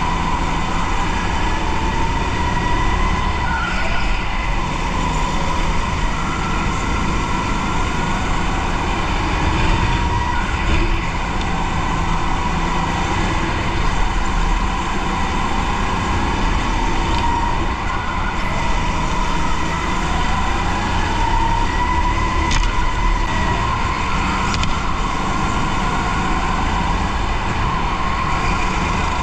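Go-kart heard from on board while lapping a track: a whine that rises and falls in pitch with speed through the corners, over a steady low rumble.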